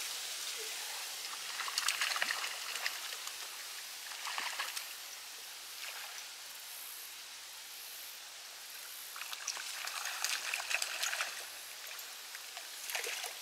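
Water splashing and trickling in several irregular bursts, about two, four and a half, nine to eleven and thirteen seconds in, over a steady hiss.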